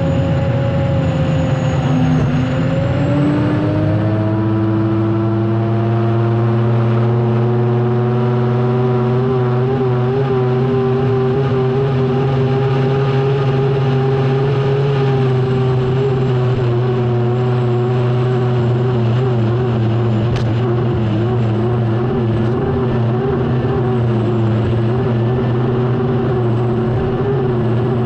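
Unlimited hydroplane's Lycoming T55 turbine engine heard onboard at racing speed: a loud, steady whine over rushing wind and water. Its pitch dips about two seconds in and climbs back over the next two seconds, then holds nearly steady.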